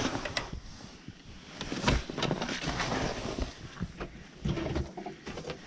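Irregular footsteps, knocks and rustling of someone moving about on a debris-strewn wooden floor, with a few heavier thuds near the middle and toward the end.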